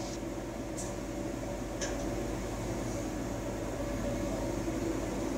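Steady low hum of room noise, with two faint ticks about one and two seconds in.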